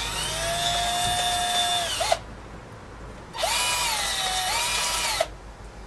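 Cordless drill running in two bursts of about two seconds, boring holes through horse chestnuts held in the hand. Its motor whine drops in pitch midway through the second burst, then rises again before it stops.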